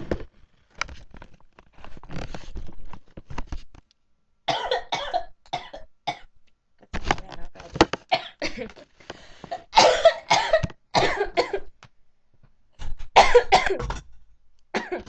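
Harsh coughing in several fits, the loudest about ten and thirteen seconds in, from smoke drawn through a small glass hand pipe.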